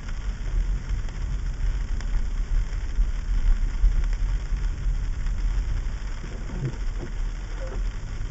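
A car driving slowly over a sleet-covered street, heard from inside the cabin: a steady low rumble of engine and road, with an even hiss of tyres on sleet and sleet falling.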